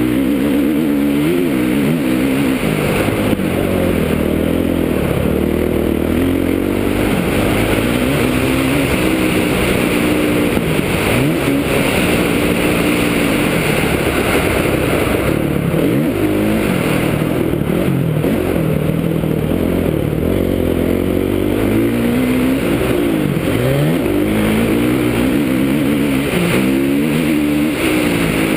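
Kawasaki KX450F's four-stroke single-cylinder engine ridden hard, its pitch climbing and dropping again and again as the throttle opens and closes, heard from a helmet-mounted camera.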